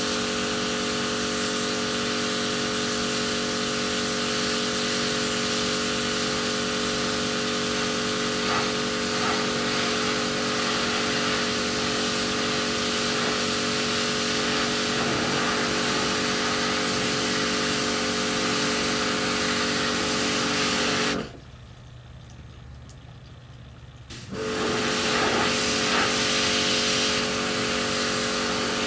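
Electric pressure washer running steadily: a motor hum under the hiss of the water jet. About three-quarters of the way through it cuts out abruptly for about three seconds, then starts up again.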